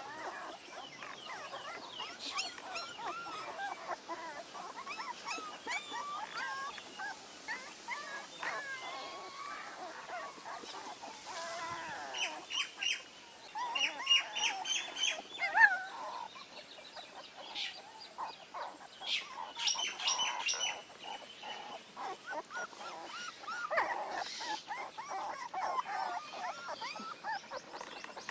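A litter of young puppies whimpering and squeaking, a busy overlapping chorus of short high whines. Bird chirps come in quick runs about halfway through and again a few seconds later.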